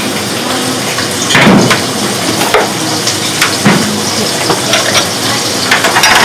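Bowls and dishes knocking several times as they are set down on a stack of plastic serving trays, over a steady kitchen hiss.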